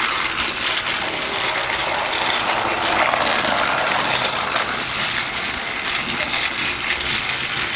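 Battery-powered TrackMaster Shooting Star Gordon toy engine running steadily along plastic track, its small geared motor whirring.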